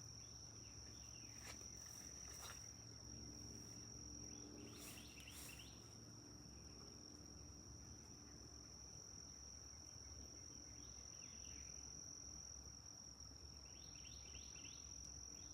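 Faint outdoor ambience: insects droning in one steady high-pitched tone, with a few faint clicks and rustles.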